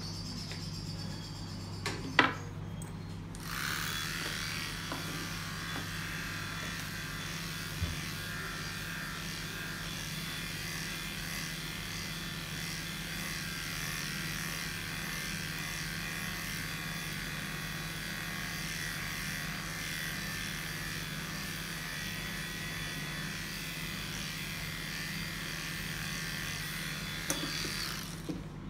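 Electric pet grooming clippers running steadily as they are worked over a Maine Coon cat's coat, switched on about three and a half seconds in and off near the end. A low steady hum runs underneath, and a sharp click comes about two seconds in.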